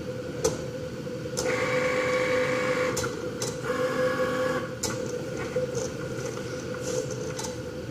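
Cricut cutting machine's motors whirring in two short runs of about a second and a half each, with sharp clicks around them, over a steady hum. The machine starts its cut and stops again almost at once, the fault that keeps it from finishing a project.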